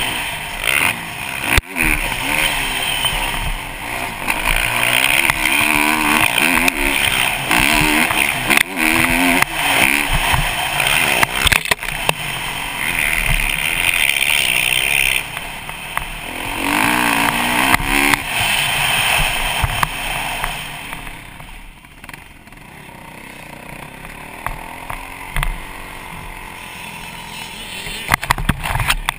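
Kawasaki KX450 dirt bike's single-cylinder four-stroke engine revving hard and shifting, the pitch climbing and falling again and again as the bike races around a motocross track, with wind rushing over the helmet camera. About two-thirds of the way in the engine drops back to a lower, quieter note for several seconds before picking up again near the end.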